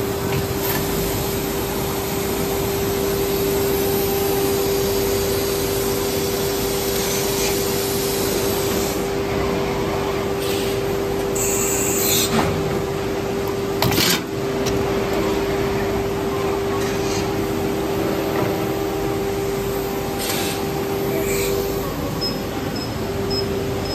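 Automatic circular sanding machine running: a steady machine hum with one constant tone under an abrasive hiss. About halfway through there is a brief high hiss, and a sharp knock follows a couple of seconds later.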